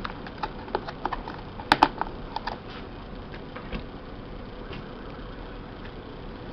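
Small clicks and taps of plastic parts and wires being handled in the opened base of an electric coffee maker, with two louder clicks a little under two seconds in. After about three seconds only occasional faint ticks remain over a faint steady hum.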